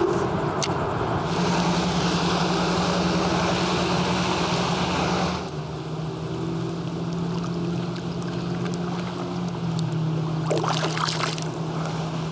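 Small boat motor running steadily under way, with water and wind rushing past. About five seconds in, the motor's hum drops a little in pitch and the rush quiets as it slows.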